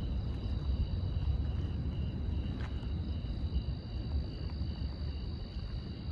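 Steady low engine rumble under high-pitched insect chirping that pulses about three times a second.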